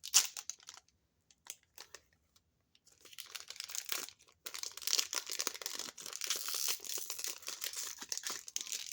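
Foil Pokémon booster pack wrapper crinkling and tearing: a few sharp crackles at first, then continuous crinkling of the foil from about three seconds in.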